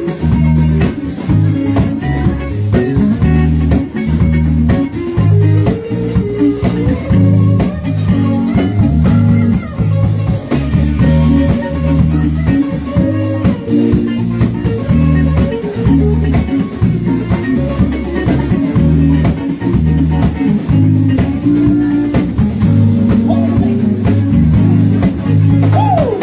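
Live blues-rock band playing: electric guitar over bass guitar and drum kit.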